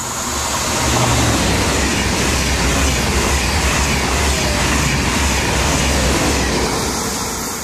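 A TGV Duplex double-deck high-speed train passing through a station at speed without stopping. Its rumble and rushing air build up quickly, hold loud for several seconds while the cars go by, and fade near the end as the rear power car passes.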